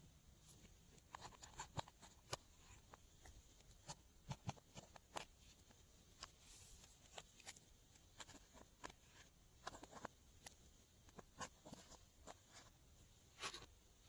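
Glossy slime being handled and mixed, giving faint, irregular sticky clicks and small pops, with one louder pop near the end.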